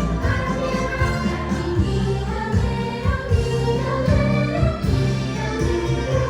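Christmas parade music played over the park's loudspeakers: a choir singing over orchestral backing with a steady bass.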